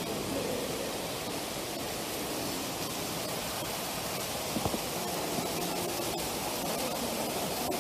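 Indoor fountain jets splashing steadily into a shallow pool, a constant rushing hiss of falling water.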